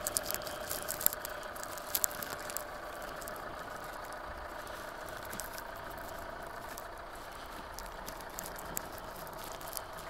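Car engine idling steadily, with scattered light ticks and clicks over it, most of them in the first few seconds.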